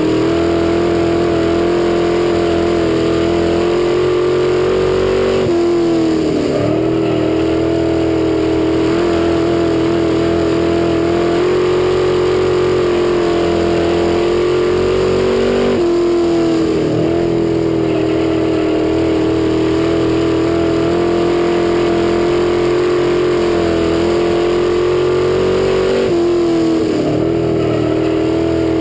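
Hobby stock dirt-track race car's engine running hard at high revs. Its pitch dips briefly three times, about ten seconds apart, as the car comes off the throttle for the turns, then climbs back as it gets back on the power.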